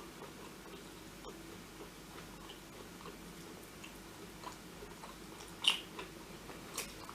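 A person chewing food with the mouth close to the microphone: faint, wet mouth clicks and smacks, one sharper smack about five and a half seconds in.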